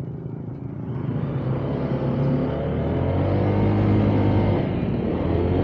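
Honda ADV 160 scooter's single-cylinder engine pulling hard under acceleration, rising in pitch and getting louder as the scooter picks up speed, with wind rushing over the helmet-mounted camera.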